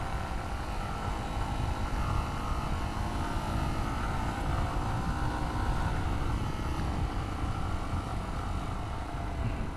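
Dual-sport motorcycle engine running steadily under load, pulling uphill in a low gear on a rough lane. Its note wavers slightly in pitch as the throttle changes, over a low rumble.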